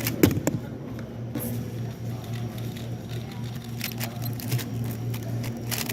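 Scattered light clicks and taps at irregular intervals over a steady low room hum, the sharpest click about a quarter second in.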